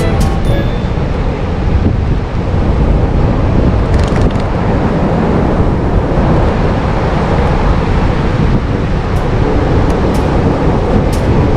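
Steady loud low rumble of wind buffeting the microphone over a boat's running engine at sea, with a few faint clicks.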